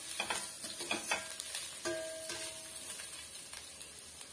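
A metal spatula stirring and scraping onion masala and spice powders around a stainless steel kadai over a light sizzle of hot oil, sautéing the spices until their raw smell is gone. Some knocks of the spatula set the pan ringing briefly. The stirring tapers off near the end.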